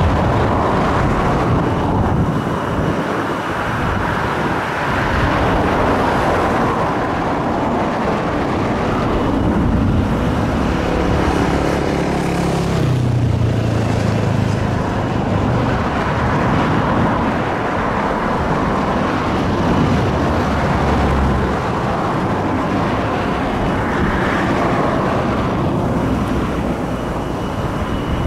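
Boeing 737-800's CFM56 jet engines running steadily at taxi power as the airliner rolls along the runway, a continuous loud roar and hiss.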